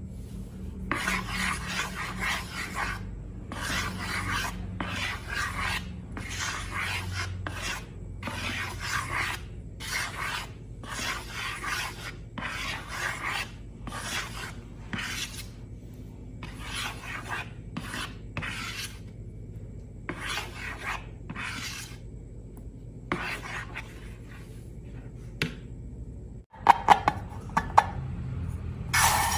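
Repeated rasping scraping strokes, about one a second, followed near the end by a few sharp knocks.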